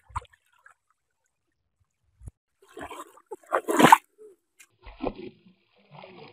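Short bursts of water splashing as people wade and grab in shallow water. The loudest burst comes a little under four seconds in, with smaller ones about a second and two seconds later.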